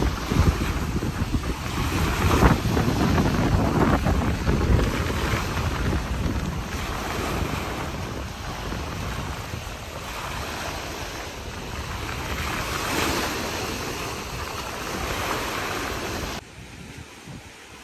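Small waves from a wind-whipped lagoon washing and breaking on the shore, with gusts of wind buffeting the microphone. Near the end the sound drops suddenly to a much quieter hiss.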